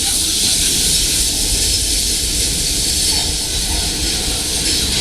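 Steam train running along the track, heard from a passenger car: a steady low rumble with a constant hiss over it.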